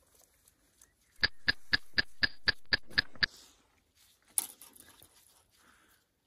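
Spinning fishing reel clicking, about four even clicks a second for two seconds as the reel is worked, then one sharp snap.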